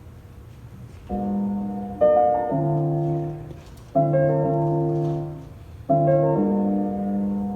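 Piano playing slow, held chords, a new chord struck about every two seconds and left to ring and fade, starting about a second in.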